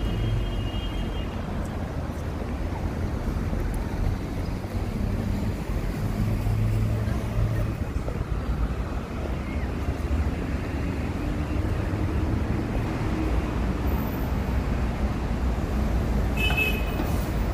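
City street traffic: a steady low rumble of road traffic, with a city bus's engine running close by. A brief high tone sounds near the end.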